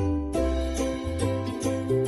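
Background music: an upbeat tune with plucked strings, a bass line and a jingle-bell rhythm.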